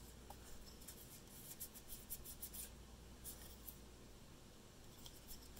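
Faint scattered clicks and rubbing of a car alternator's plastic brush holder, regulator and metal rectifier plate being handled and worked apart by hand, over a low steady hum.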